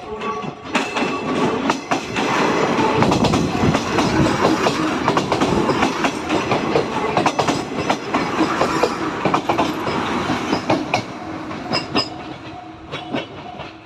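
A 105-series electric train passing over a level crossing, its wheels clacking over the rail joints in quick runs; the rumble builds within the first second and fades near the end to a few last clacks. The crossing's warning bell rings as the train comes in and again as it goes.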